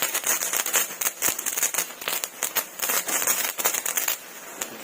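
A fire being lit and catching, with dense irregular crackling and popping over a steady hiss.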